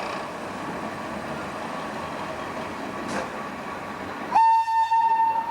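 Steady rumble of a running train, then, about four seconds in, a train horn starts abruptly and holds one loud, steady note.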